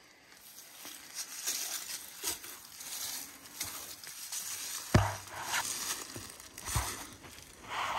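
Footsteps crunching and rustling through dry brush and debris, with a sharp knock about five seconds in.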